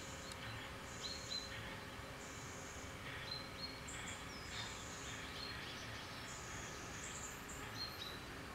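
Birds chirping and calling, short high notes repeating every second or so, over a faint steady outdoor background hiss.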